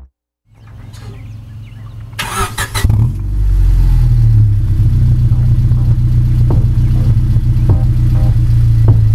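1998 Honda Civic EX's 1.6-litre four-cylinder being started: a short burst of cranking a little over two seconds in, then the engine catches and settles into a steady idle through the exhaust.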